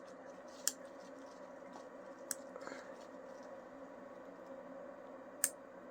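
Human fingernail clippers snipping the tips of a Pembroke Welsh Corgi puppy's nails: three sharp clicks, one under a second in, one a little past two seconds and one near the end, over a faint steady hum.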